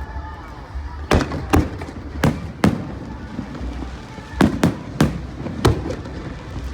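Aerial firework shells bursting in the sky: about eight sharp bangs in uneven groups, each trailing a short echo, over a steady low rumble.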